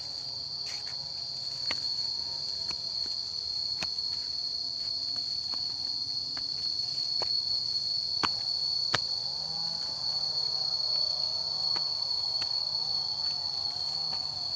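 Insects, crickets or cicadas, buzzing in one steady high-pitched drone, with scattered clicks of footsteps on the rocky path.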